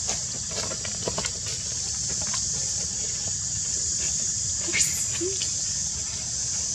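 Soft scattered clicks and rustles from a newborn macaque nursing at its mother's nipple, the sharpest click just under five seconds in, over a steady high-pitched drone.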